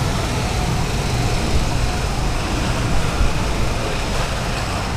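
Steady outdoor funfair background noise: a low rumble under an even hiss, with no single sound standing out.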